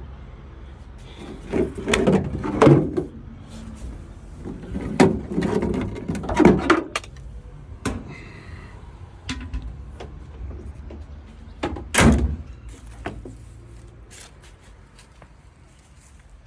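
Irregular knocks, clunks and rattles of a replacement window regulator being handled and fitted into a pickup's door, with one sharp, louder knock about twelve seconds in.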